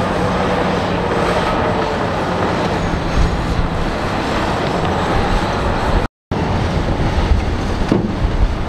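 Heavy diesel engines of a crawler bulldozer and a dump truck running steadily, with a few knocks of rock and dirt. The sound cuts out for a moment about six seconds in.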